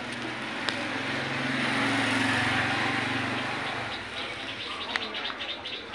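A motor vehicle passing by, its engine and road noise swelling to a peak about two seconds in and fading away by about four seconds.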